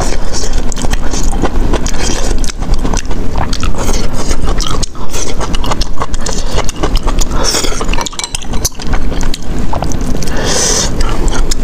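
Close-miked wooden chopsticks and then a metal spoon stirring rice into a saucy self-heating hotpot, with continuous clicking and scraping against the container.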